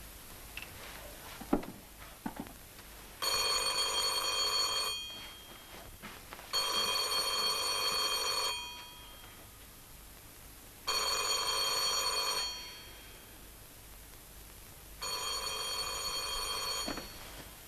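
Rotary-dial telephone bell ringing four times, each ring about two seconds long with roughly two-second pauses between. Before the first ring come a few short knocks and one sharp knock.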